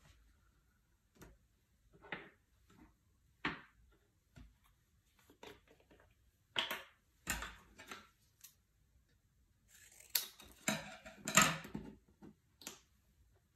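Scattered short scrapes and taps of gouache painting materials being handled, with a louder run of scraping about ten to twelve seconds in.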